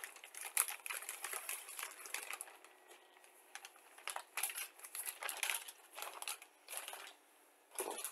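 Plastic bag crinkling, with irregular light clicks of plastic model-kit sprues being handled.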